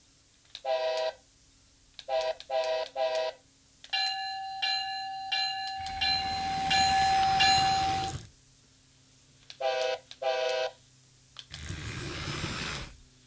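Amtrak Acela toy train's built-in electronic sound effects: short horn toots, one and then three quick ones, a ringing chime-like tone with a hiss in the middle, then two more toots and a hiss near the end. A faint steady hum runs underneath.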